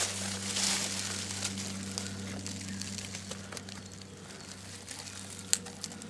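Dry rustling and small clicks as hands arrange miniature wooden houses and twig bundles on a mossy tree stump, with one sharper click near the end.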